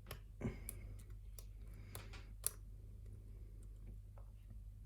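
Faint clicks and scrapes of a hook pick working the pins of a pin-tumbler lock held under tension, feeling for pin six to set, with a sharp click about two and a half seconds in.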